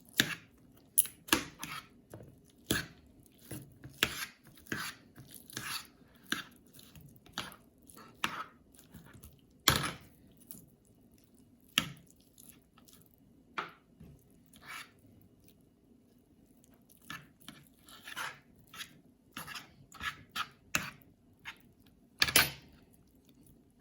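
Boiled chicken being pulled off the bone and skinned: irregular short crackling and tearing clicks, with a louder snap about ten seconds in and another near the end.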